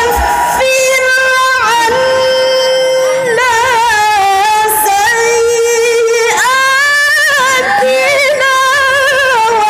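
A woman's voice reciting the Qur'an in the melodic mujawwad style into a microphone, holding long notes decorated with fast wavering ornaments. A new phrase sweeps up about six seconds in.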